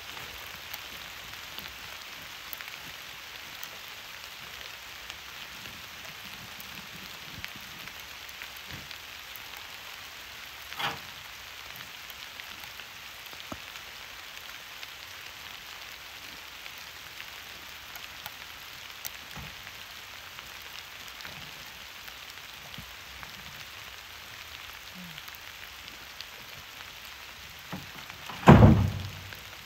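Steady rain falling, an even patter throughout. A short knock about eleven seconds in and a loud thump near the end.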